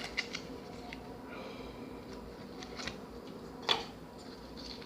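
Small plastic slime containers being handled between slimes, with scattered light clicks and one sharper click about three and a half seconds in.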